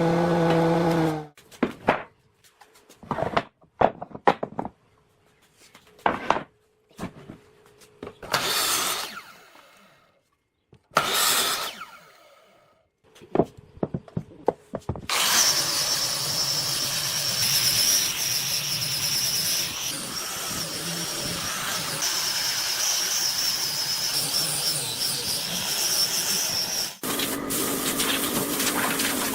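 Woodworking sounds: a series of sharp knocks and short scraping strokes on wood with pauses between them, then a power tool running steadily with a high whine for about twelve seconds.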